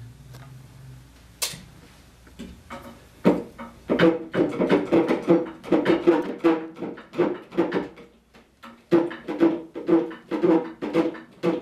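A hand tool working a wooden Windsor-chair spindle that stands in the seat, in quick rhythmic strokes about two or three a second. Each stroke sets the spindle ringing with a low note. There is one sharp click about a second and a half in, and the strokes pause briefly near the end.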